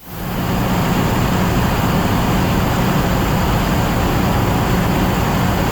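Light aircraft's piston engine running steadily at low power while holding short for takeoff, heard from inside the cockpit as a constant drone, fading in over the first half second.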